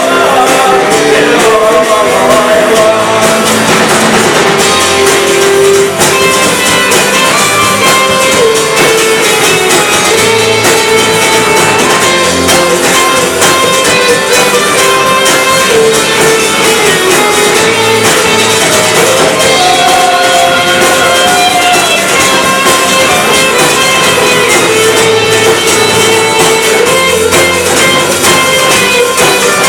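Live rock band playing an instrumental stretch of a song, with guitar over bass and drums.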